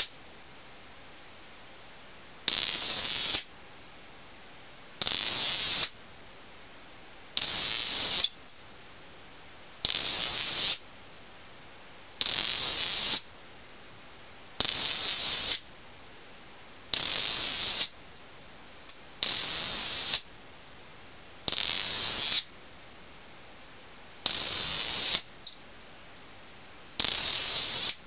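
A pair of magnetic 'snake egg' (zinger) cylinders thrown into the air, spinning around each other and giving a rattling buzz. Each buzz lasts just under a second, and they come about every two and a half seconds, some eleven times.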